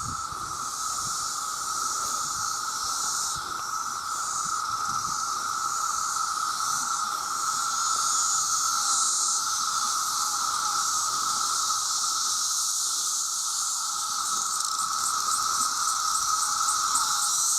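Dense chorus of cicadas: a steady drone with a higher hissing buzz above it. Near the end the high buzz takes on a rapid pulsing, about four beats a second.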